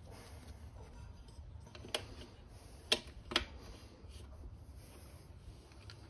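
Three light clicks of plastic rim savers being set onto the edge of the scooter's wheel rim, over a faint steady background.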